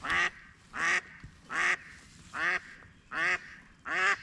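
Live decoy hen duck quacking: about six loud quacks, a little under a second apart, calling to draw drakes in to her.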